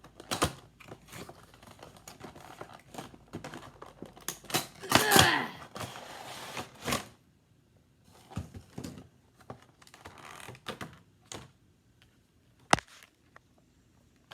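Cardboard and plastic packaging of a Funko Pop box being handled and opened: irregular clicks, taps and rustling, with a louder stretch of scraping and rustling about five seconds in and a single sharp click near the end.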